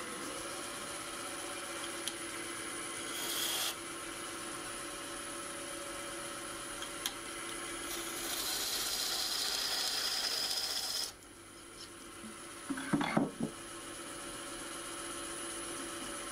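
Wood lathe running steadily with a yew blank spinning between centres. A turning tool cuts into the spinning wood briefly about three seconds in, then again for about three seconds in the second half, stopping suddenly. A few knocks follow.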